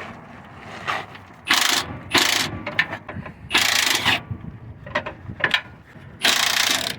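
Hand ratchet clicking in about five short runs as a 17 mm motor-mount nut and bolt are worked loose, with faint clicks of the socket and metal between runs.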